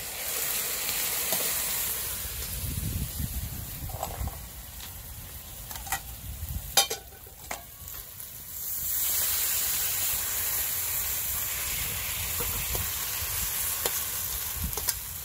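Stir-fried chicken sizzling in a hot wok with the burner off, with a few sharp clinks of a metal spatula against the wok about six to seven seconds in. The sizzling grows louder again from about nine seconds as the food is scraped out of the wok.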